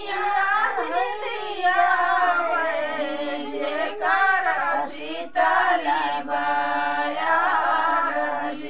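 A group of women singing a traditional folk wedding song (vivah geet) together, unaccompanied, their voices in drawn-out, wavering lines.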